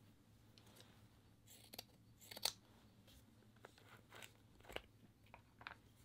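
Faint, scattered crunchy rustles and clicks of hands handling craft materials, a piece of purple lace and a plastic glue bottle. The loudest rustle comes about halfway through, with a few short clicks near the end.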